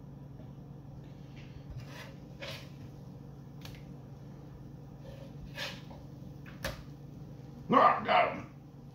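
A metal fork tapping and scraping a few times on an electric griddle's nonstick surface as fried eggs are worked and turned, over a steady low hum. Near the end come two short, loud vocal sounds from a person.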